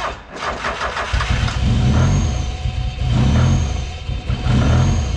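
Mazda Miata 1.8 L VVT four-cylinder cranking on the starter, catching about a second in, then running with a loping, surging note that swells and falls back roughly every second and a half. The engine has a big aftermarket cam, and the builders say it runs lean, blaming the injectors.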